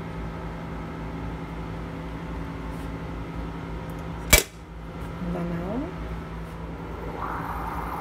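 Bialetti aluminium moka pot brewing coffee on an electric glass-ceramic hob, over a steady low hum. A sharp click comes a little over four seconds in. Faint gurgling chirps follow, then a soft sputtering hiss near the end as the coffee rises into the upper chamber.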